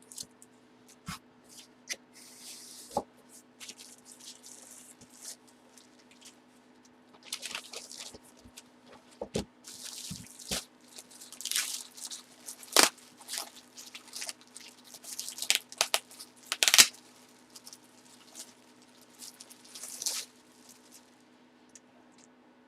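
Card packaging being handled and opened: crinkling and tearing of wrappers with sharp clicks and taps, coming in irregular bursts with short pauses, over a faint steady hum.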